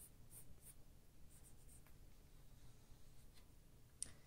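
Faint strokes of a soft-core coloured pencil on paper, a few short scratches a second for the first couple of seconds, then near silence with one sharp click near the end.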